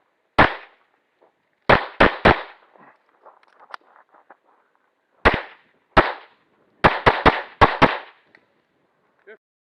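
Pistol shots: a stock service pistol firing eleven rounds in strings, one single shot, then three quick shots, then two spaced shots, then five in rapid succession. Fainter pops from shooting farther off come between the strings.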